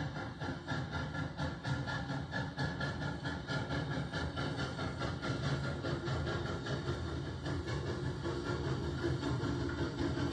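Two narrow-gauge steam locomotives, No. 152 and Rio Grande No. 464, double-heading a passenger train past at close range: a steady, fast run of exhaust chuffs with steam hissing.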